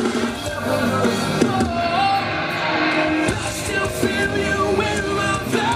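Rock band music with a singer over guitar, played loud over festival stage speakers.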